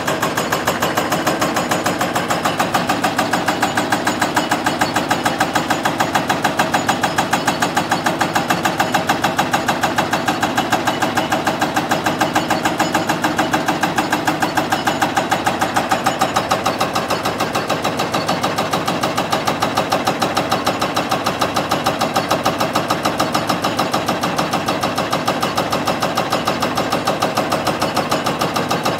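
JCB 2180HD hydraulic breaker on a JCB NXT 215LC tracked excavator hammering rock in a fast, steady rhythm of blows, with the excavator's engine running.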